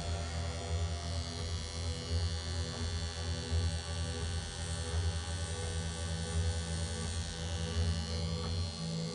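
Pen-style tattoo machine fitted with a 9-round-liner needle, running on skin with a steady low electric hum that stops near the end.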